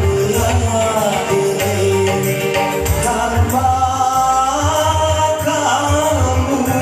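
Music: a melody over a steady, pulsing bass beat.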